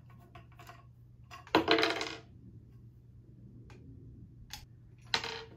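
Metallic clinks as a screwdriver takes the small screws out of the end fittings of a white metal closet rod: a sharp ringing clink about a second and a half in, faint clicks, and another shorter ringing clink near the end.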